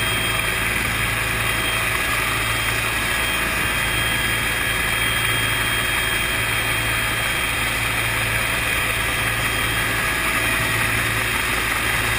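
Bell UH-1 Huey helicopter in flight, heard from inside its open cabin door: a steady, unchanging mix of turbine and rotor noise with a low hum and wind rushing past.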